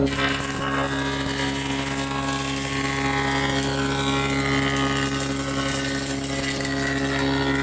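Wood-cleaning machine running steadily: a motor hum under a strong hiss that comes in at the start, with faint tones sliding up and down.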